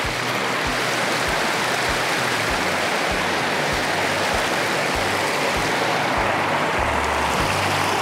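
Small mountain stream running over rocks, a steady rush of water. Underneath, a soft low thump repeats about every half second, and a steady bass note comes in near the end: the beat of background music.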